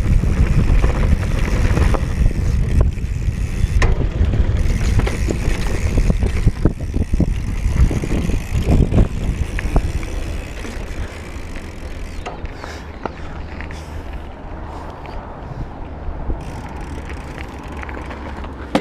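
Mountain bike descending a rough dirt trail: wind rumbling on the action-camera microphone, with the bike rattling and knocking over rocks and roots. The rumble and knocks die down after about ten seconds, leaving a softer, steadier noise.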